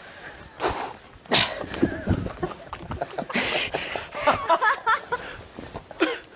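A man's voice making wordless, breathy vocal noises in short bursts, then a warbling "ha ha ha" cry about four to five seconds in.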